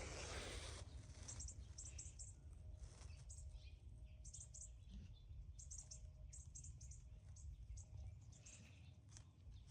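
Near silence, with faint, high chirps of small birds coming in short clusters every second or so and a low rumble underneath.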